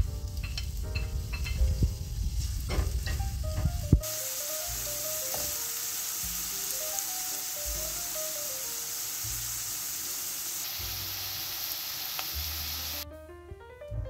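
Chopped onion scraped off a plate with a wooden spoon into a pan of hot olive oil, with knocks and scrapes. From about four seconds in, the onion fries with a steady sizzle, which stops suddenly near the end.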